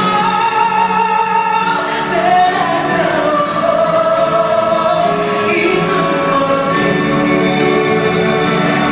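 A woman singing a Japanese pop song live into a microphone, holding long notes over instrumental backing.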